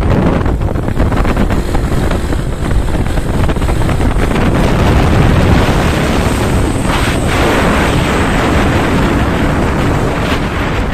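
Heavy cargo truck driving past at close range: a dense rumble of engine and tyres buried under loud wind buffeting on the microphone.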